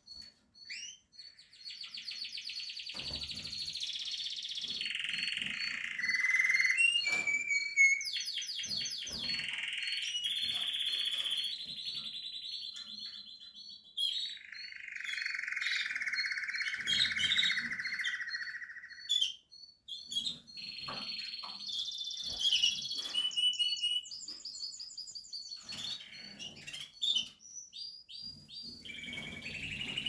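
Canary singing a long song of fast repeated trills and rolls, with a lower roll held for about five seconds midway through.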